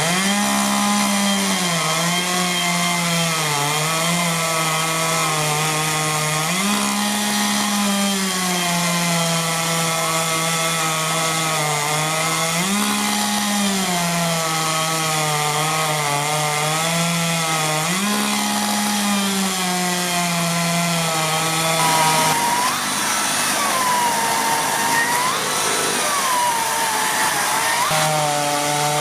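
Chainsaw cutting through a 12 cm log, its running pitch sagging and recovering several times as the chain bites under load. For several seconds near the end the low running note drops out and a higher wavering whine takes over.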